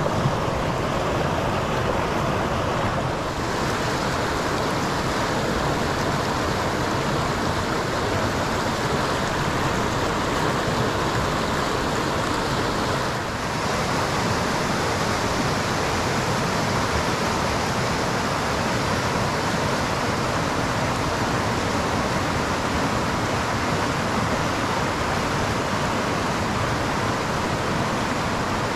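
Fast creek water, swollen after rain, rushing steadily.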